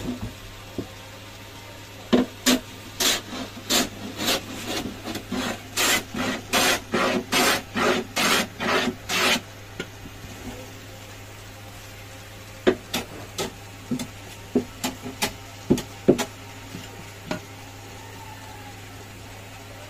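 A hand tool scraping along the edges of a wooden speaker cabinet in a run of even strokes, about two a second, for some seven seconds, smoothing the wood. A few short knocks and taps on the box follow.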